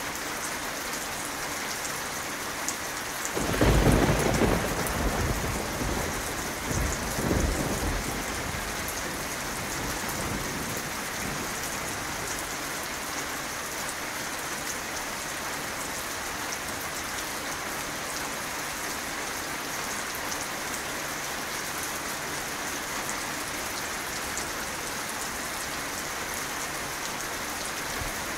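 Steady rain falling. A roll of thunder starts about three seconds in, swells again a few seconds later and fades away.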